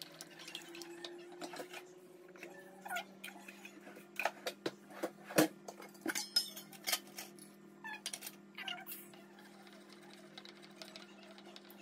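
Wooden spoon stirring curd in a glass bowl, giving irregular clicks and knocks against the glass, busiest through the middle, over a steady low hum.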